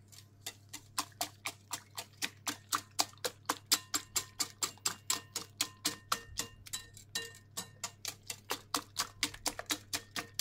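Wire whisk beating egg batter in a glass bowl, its wires clicking against the bowl in a quick, even rhythm of about four to five strokes a second.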